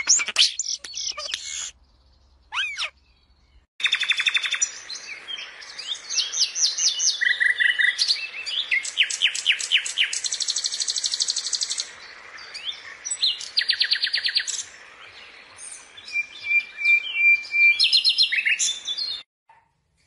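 A European starling gives a few loud whistled calls at the start. Then a small songbird sings a long, varied song of fast trills and rapidly repeated whistled notes, broken by short pauses.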